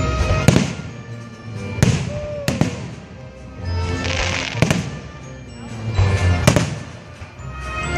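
Fireworks bursting in the air: about six sharp bangs a second or so apart, with a crackling shower about four seconds in. Music with held notes plays underneath.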